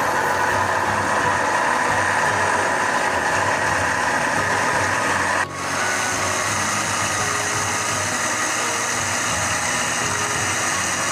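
Countertop blender motor running at speed, grinding soaked almonds with water into a smooth milky slurry: a loud, steady whir. It breaks off for an instant about five and a half seconds in, then carries on with a slightly brighter tone.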